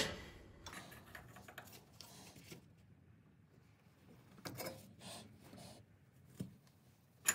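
Faint scrapes and ticks, in a few short clusters, of a 10 x 1.5 mm thread tap being forced by hand into a drilled-out bolt hole in a steel car frame, turned with a wrench extended by a pipe for leverage. The tap is cutting hard, and the worker finds it dull.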